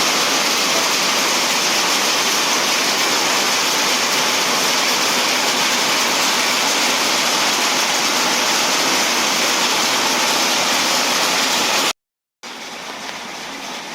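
Heavy rain falling, a loud, steady hiss. About twelve seconds in it cuts out for half a second and returns as a quieter steady hiss.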